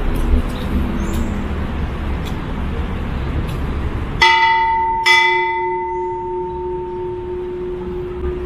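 A large bronze temple bell struck twice, about a second apart, near the middle, each strike leaving a ringing chord whose low hum carries on long after. Before the strikes there is only a steady background hiss.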